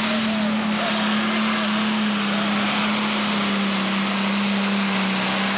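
Pro Stock pulling tractor's turbocharged diesel engine running flat out under load as it drags the sled, a loud, steady drone whose pitch dips slightly about two seconds in.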